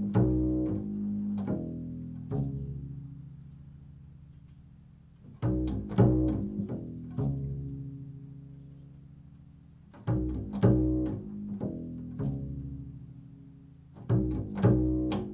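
Improvised music on a low-pitched plucked string instrument, like a double bass played pizzicato: short groups of plucked low notes come about every four to five seconds, each group ringing on and fading before the next.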